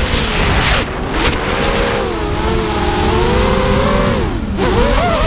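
Miniquad racing drone's four THuG 2204 2300kv brushless motors spinning 5040 props, whining with a pitch that rises and falls with the throttle, heard from the onboard camera with heavy wind rumble on the microphone. Near the end the pitch drops low and then climbs back sharply as the throttle is punched.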